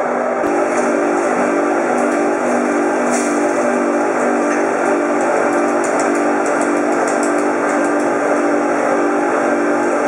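Sausage-making machinery running with a steady hum, with a click about half a second in and scattered light ticks and rattles later on.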